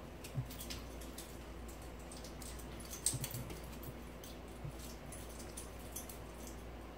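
Light scattered clicks and a few soft thumps of a Shetland sheepdog puppy and a Maine Coon cat moving about on the floor, loudest about three seconds in.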